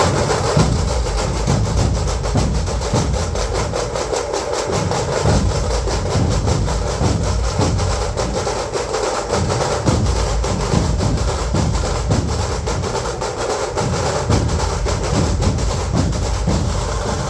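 Dhol drums played in a fast, driving rhythm: a dense run of sharp, evenly spaced strokes over heavy low beats, with no break.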